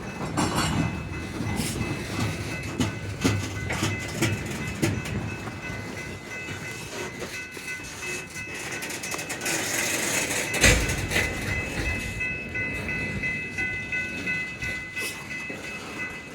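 Loaded coal train rolling past: the wheels of the loaded cars clatter over the rail joints in a run of clicks and knocks, with a thin, high, steady squeal joining in a few seconds in. One louder bang comes about two-thirds of the way through.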